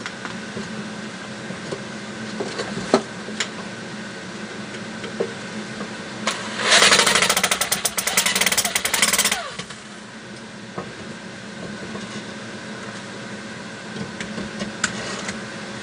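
A handheld power tool runs in one burst of about three seconds midway, a fast rattling buzz. Around it, light clicks and knocks of small wooden parts being handled over a steady low hum.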